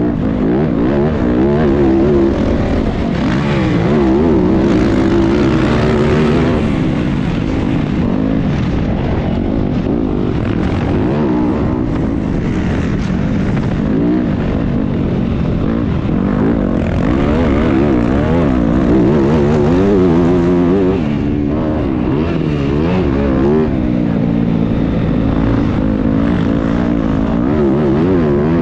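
Several motocross bikes racing, their engines overlapping and revving up and down as they accelerate, shift and back off around the track.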